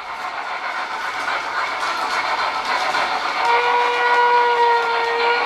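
G-scale model train rolling closer along the track, its wheels clicking over the rail joints and getting louder. About three and a half seconds in, the locomotive's sound unit blows one long, steady whistle.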